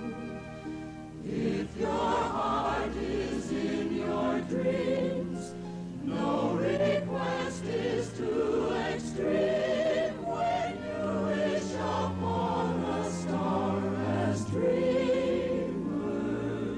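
Choir singing a wordless melody over an orchestral accompaniment.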